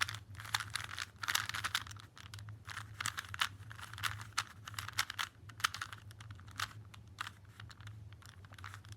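Stock Rubik's-brand plastic cube being turned by hand: a fast, irregular run of clicks and clacks as the layers are twisted. It is a standard Rubik's cube rather than a speed cube, which makes it noisy to turn.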